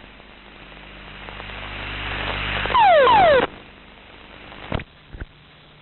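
F-16 cockpit audio during the ejection sequence. A rushing noise grows louder for about three seconds, then a loud burst of under a second carries two falling tones. It cuts off abruptly, leaving two short clicks and a faint steady hum.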